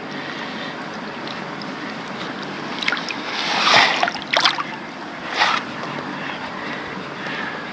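Water sloshing and splashing as a tench is let out of a wet retention sack in the lake, with a louder rush of splashing about three and a half seconds in as the fish swims off, and a few sharp splashes after it. A steady hiss of wind runs underneath.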